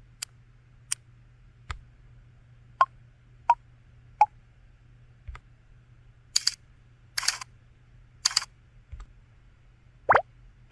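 LG-SU550 mobile phone's built-in system sound effects played one after another: short clicks and pitched blips, then three noisy swishes, then quick upward-sweeping blips near the end. A low steady hum lies underneath.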